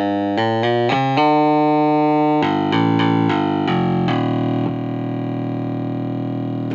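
ARP Odyssey 2800 analog synthesizer playing a buzzy bass line with its noise generator off. It plays a run of short notes, holds one note, plays more quick notes, then holds a long note that slowly fades.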